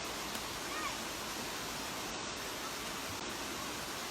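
Steady rush of a mountain valley stream, an even hiss of flowing water.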